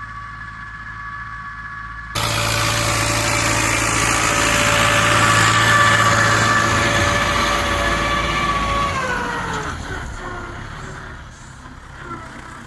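YuMZ tractor's diesel engine running. It turns abruptly much louder about two seconds in, then the pitch falls and it quietens around nine seconds in as the revs drop.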